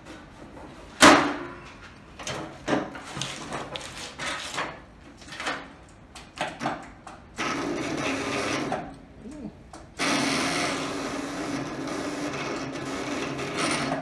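Lawn tractor hood dropped shut with a loud bang about a second in, then a few knocks and rattles. Then the Murray lawn tractor's electric starter cranks the engine twice, about a second and a half and then about four seconds, without it catching; the owner blames a starter that is no good.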